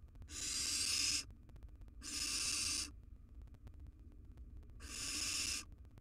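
Barn owl nestlings giving harsh, hissing screech calls: three separate calls, each just under a second long, spaced about two seconds apart.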